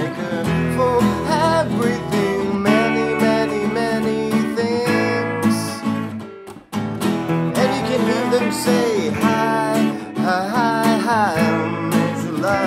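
An acoustic guitar strums chords while an electric guitar plays a melodic lead with bent, wavering notes over them. The playing breaks off briefly about halfway through, then resumes.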